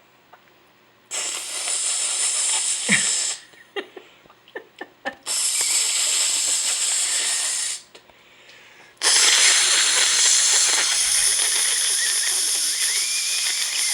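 Three long, loud hissing noises, each lasting two to five seconds, with a few short clicks in the gaps between them.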